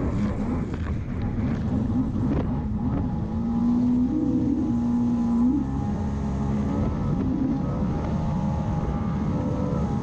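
Yamaha SuperJet stand-up jet ski's engine running at speed, its pitch going up and down with the throttle, over the rush of water spray.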